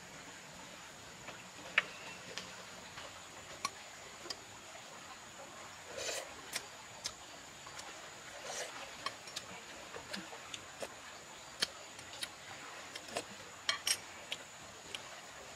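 Spoon clicking and scraping against a plate while eating, in irregular light clicks, over a faint steady high-pitched whine.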